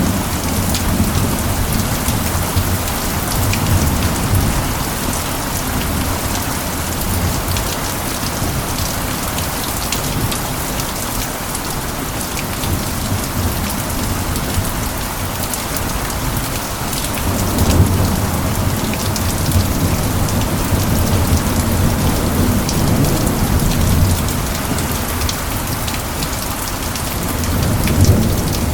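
Steady heavy rain with many individual drops ticking on surfaces. Low rolling thunder swells up under it several times: at the start, for several seconds past the middle, and again near the end.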